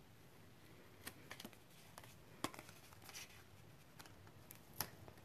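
Faint handling of cardstock and double-sided adhesive tape being laid on box tabs: a few scattered soft clicks and taps with brief paper rustles.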